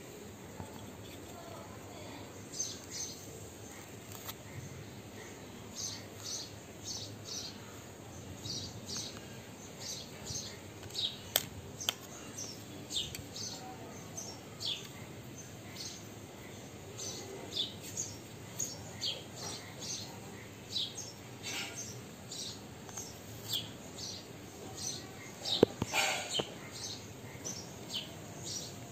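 Small birds chirping: short, high notes, some falling in pitch, repeating irregularly once or twice a second over a low background hiss. Twice, a sharp click stands out.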